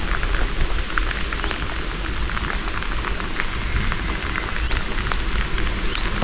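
Outdoor wind rumbling on the microphone under a steady crackling patter of small ticks, with a few short high chirps now and then.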